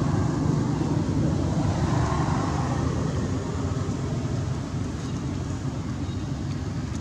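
A vehicle engine running with a steady low hum, slowly growing fainter.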